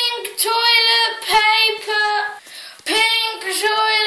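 A child singing without clear words in a high voice, a run of held, slightly wavering notes in short phrases, with a brief pause about two and a half seconds in.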